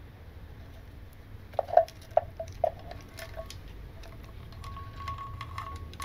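Timing chain and cam sprockets of a GM Ecotec L61 engine clinking as they are worked loose and lifted out by hand: a few sharp metallic clinks between about a second and a half and three and a half seconds in, then lighter scattered clicks.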